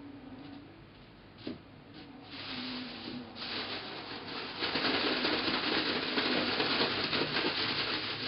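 Plastic bag rustling as it is shaken to coat lotus root slices in potato starch, building from about two seconds in and loudest over the second half.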